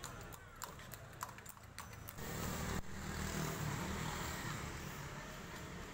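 Motorcycles passing in street traffic, their engines running loudest from about two seconds in. Before that come a few sharp clicks: horse hooves on asphalt.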